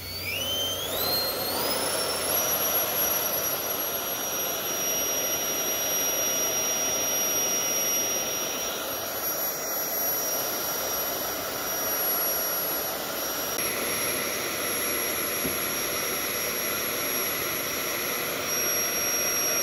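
The air umbrella's electric fan spinning up in steps to a high whine over the first couple of seconds, then running steadily at full speed with a loud rush of air.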